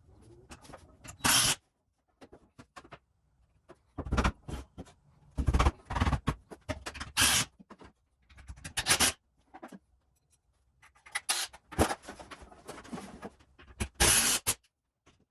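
Irregular short bursts of scraping and clattering from work on a lumber rack going up on a wall, separated by silent gaps.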